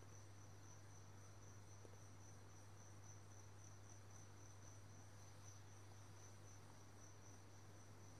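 Near silence: a faint, steady high-pitched cricket trill over a low, steady hum.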